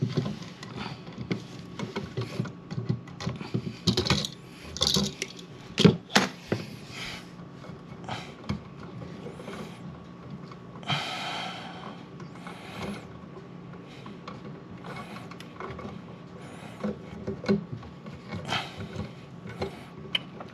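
Hands and pliers working stiff electrical wires inside a metal outlet box: irregular small clicks, taps and knocks of metal and wire, with a longer rasping scrape about eleven seconds in. A faint steady hum sits underneath.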